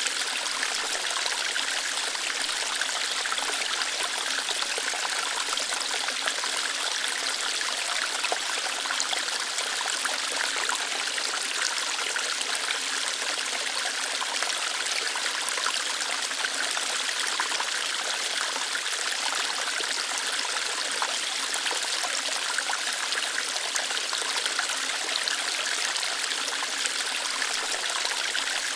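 Small waterfall, water flowing lightly over rocks in a steady hiss with fine splashing, higher-pitched and without deep rumble.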